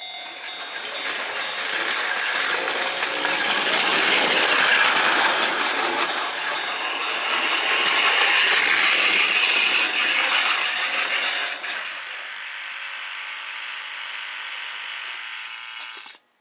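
Model train running over the track past a model level crossing, a dense metallic clatter that builds, stays loud for several seconds, eases back about 12 seconds in, and cuts off suddenly near the end.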